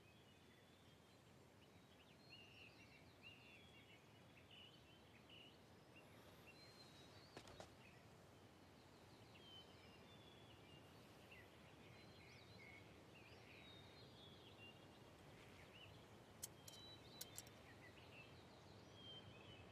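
Faint birds chirping over a low background hiss. A few soft clicks come once about a third of the way through and three times close together near the end.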